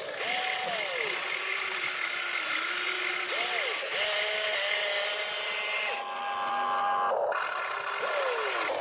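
Small electric motors of a radio-controlled excavator or construction truck whining as they run, their pitch rising, holding and falling again several times over a steady hiss.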